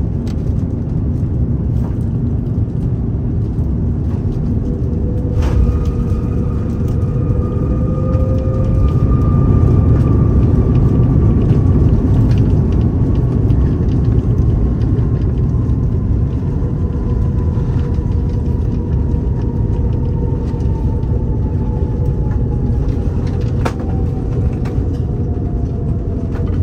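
Steady loud rumble of an Airbus A330-900neo heard from inside the cabin during the landing phase. About five seconds in, a faint whine starts and slowly falls in pitch over the next twenty seconds.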